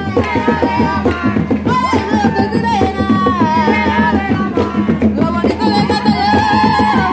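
Panamanian tamborito: a woman singing a melody over a fast, dense beat of hand drums.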